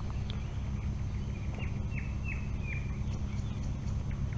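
Nightingale singing: a run of four quick down-slurred whistles about a second and a half in, over a steady low rumble on the microphone.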